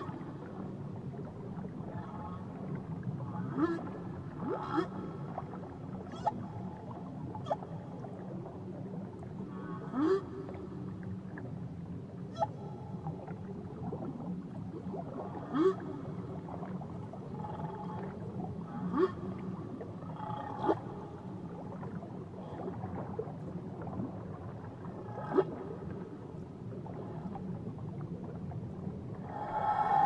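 Whale calls: short rising whoops and cries a few seconds apart over a steady low rumble. A louder, longer call begins near the end.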